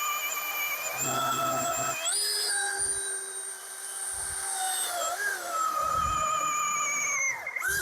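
Milwaukee M18 Fuel 20-inch battery chainsaw on 8 Ah Forge batteries, its motor and chain whining while cutting a 19-inch beech log. The pitch steps up about two seconds in, then sags slowly under the load, and dips sharply and recovers near the end.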